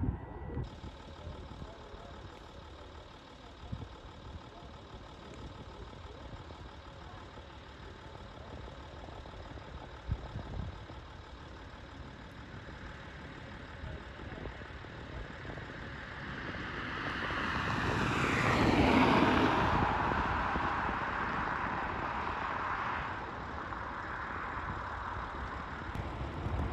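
Jet airliner's engines heard across the airfield: a broad jet roar swells over several seconds, peaks a little past the middle with a falling pitch as the aircraft passes, then fades, over a steady low rumble.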